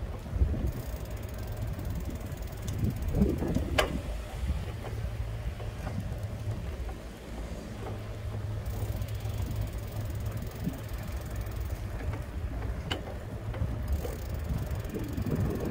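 Steady low rumble of a small vehicle rolling slowly over cracked asphalt, with wind on the microphone and two sharp clicks, one about four seconds in and one near thirteen seconds.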